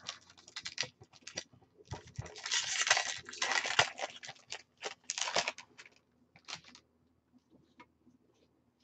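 An Ixalan booster pack's foil wrapper being crinkled and torn open by hand, with crackling that is loudest from about two to four seconds in and again briefly around five seconds. After that come a few light ticks and rustles as the cards are handled.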